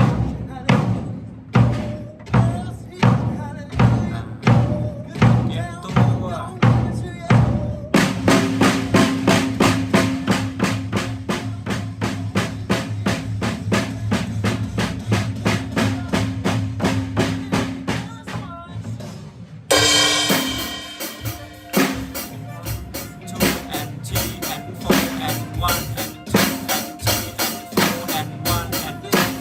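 Drum kit played in a steady beat, kick drum and snare alternating on the beats, becoming busier with faster strokes about eight seconds in.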